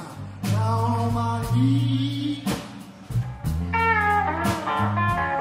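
Live blues band playing: electric bass and drums with a hit about once a second, and electric guitars. A lead line bends up in pitch near the end.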